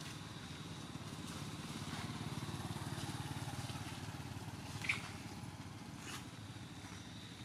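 Low, steady running of a motor engine, growing louder a couple of seconds in and then fading, with a sharp click about five seconds in.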